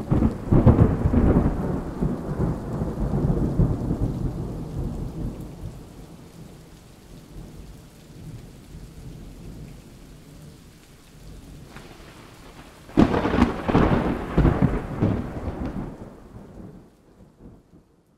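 Thunder rumbling over steady rain: a loud clap right at the start that rolls away over several seconds, then a second thunderclap about thirteen seconds in, with the storm fading out near the end.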